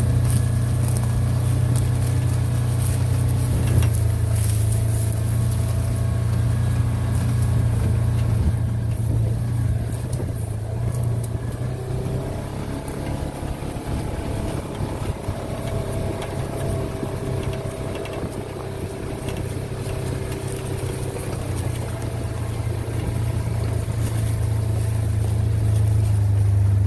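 Engine of a small utility vehicle running steadily as it drives along, a low drone that eases off a little midway and grows louder again near the end.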